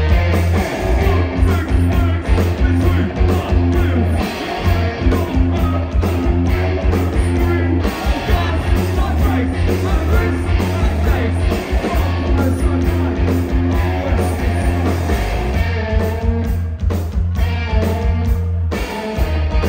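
Live rock band playing: electric guitars, bass and drums at full volume with a singer's vocal over them. The low end drops out briefly near the end before the band comes back in.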